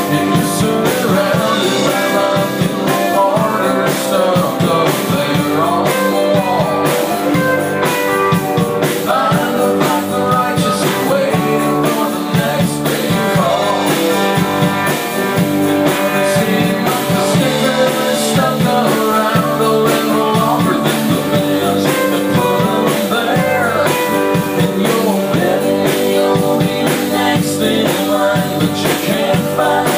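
A rock band playing live: electric guitars and drum kit with a singer's voice over them, a steady beat running throughout.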